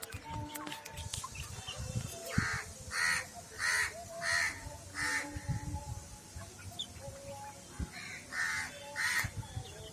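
A crow cawing: a run of five harsh caws about two and a half seconds in, then two more near the end.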